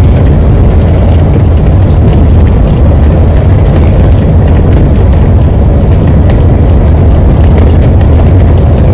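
Steady, loud low rumble of a bus driving at speed, heard from inside the bus: engine and road noise, with small clicks now and then.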